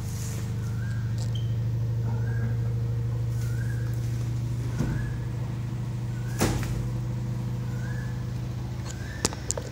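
A washing machine running with a steady low hum, and a short rising chirp that repeats about every second and a quarter. A few knocks from a cardboard box being handled cut in, the sharpest about six and a half seconds in and a cluster near the end.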